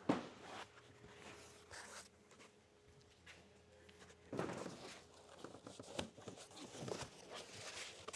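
Dense foam packing blocks being pulled off a crated spray drone and handled. A knock comes right at the start, then scattered scraping and rubbing of foam against foam and the frame, loudest about four and a half seconds in and again near the end.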